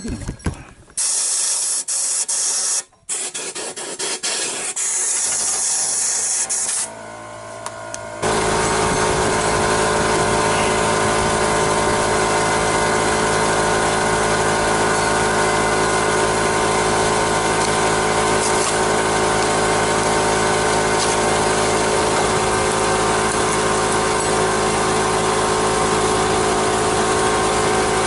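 Hissing and short bursts of noise, then a steady, even machine hum that starts suddenly about eight seconds in and holds without change.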